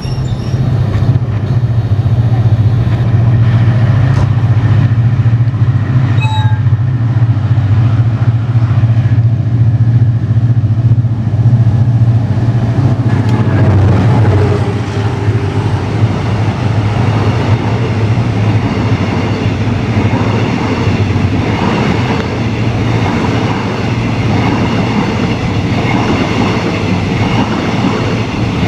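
Diesel locomotive of a passenger express passing close by with a steady low engine drone, followed from about halfway by its stainless-steel carriages rolling past, wheels clattering over the rail joints.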